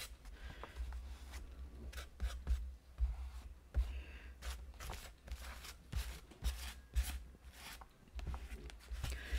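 Metal palette knife scraping and dabbing texture paste across a thin Bible page: irregular short scratchy strokes, several a second.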